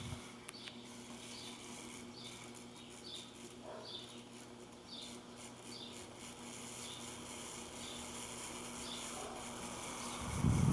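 Pedestal fan's electric motor giving a steady low hum, with a faint high chirp repeating about every 0.7 seconds. Near the end a much louder rushing noise starts.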